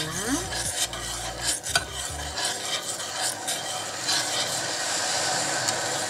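Stainless steel ladle stirring a sugar, honey and lemon syrup in a stainless steel pot, metal rubbing against the pot, with a few knocks against its side in the first two seconds.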